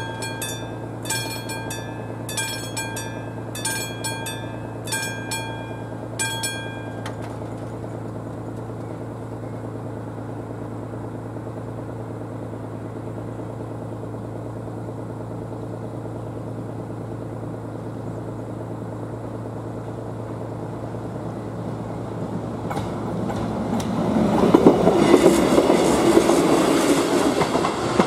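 Electronic warning bell of an AŽD 71 level-crossing signal ringing about once a second while the barriers come down, stopping after about six seconds, with a steady low hum underneath. Near the end a regional diesel train comes up and runs over the crossing, the loudest sound, its wheels clattering on the rails.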